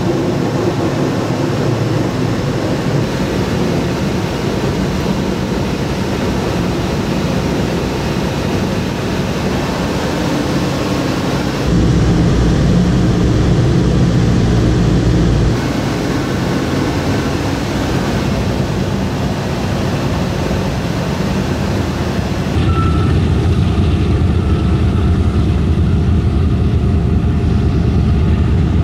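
Steady drone of a Boeing B-29 Superfortress's four Wright R-3350 radial engines in flight, heard mostly from inside the aircraft. It gets louder and heavier in the bass twice, about 12 seconds in for a few seconds and again from about 23 seconds on.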